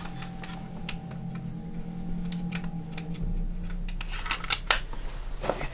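Scattered clicks and crackles of broken wood and plaster debris being disturbed on a floor, over a steady low hum, with a deeper hum joining about three seconds in.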